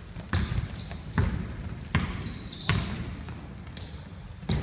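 Basketball dribbled on a hardwood gym floor: five bounces, about one every 0.8 s, with a longer gap before the last. Short high sneaker squeaks on the floor come between the bounces.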